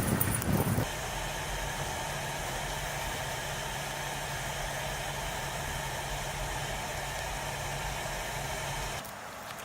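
A loud, irregular rumble for under a second, then an engine idling steadily with an even low hum. The hum cuts off abruptly about nine seconds in.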